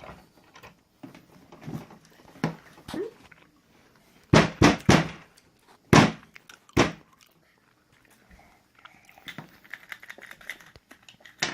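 Hard knocks: a quick run of four close together, then two single knocks about a second apart, with faint clicks and rustling around them.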